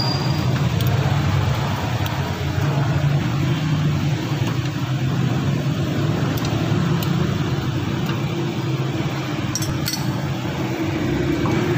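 A steady low mechanical hum with a few light metallic clinks from a small wrench on the front wheel hub's bolts as they are tightened.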